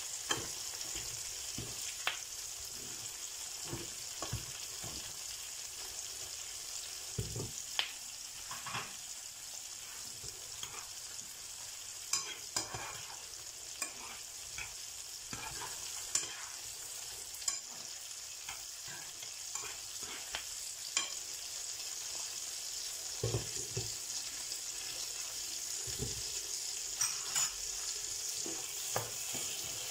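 Mushrooms sizzling in a frying pan with a steady hiss, wet with the juice they have given off. A wooden spatula scrapes and knocks against the pan now and then as they are stirred.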